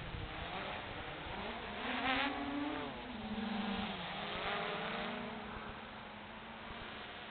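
ZMR250 quadcopter's electric motors and propellers buzzing in flight, the pitch rising and falling as the throttle changes. It swells to its highest, loudest point about two seconds in, then settles lower and fades slightly.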